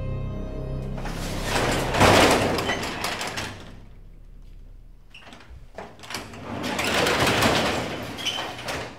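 Sectional garage door rolling along its metal tracks, hand-pulled, in two long runs of two to three seconds each.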